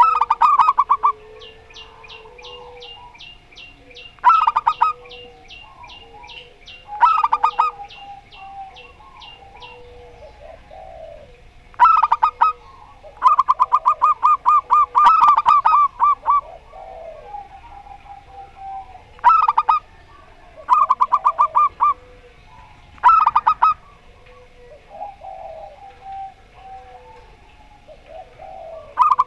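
Zebra doves singing back and forth. There are about nine loud bursts of rapid staccato cooing, the longest lasting about three seconds midway. Softer, lower coos come between the bursts, and a thin high chirp repeats about twice a second through the first ten seconds.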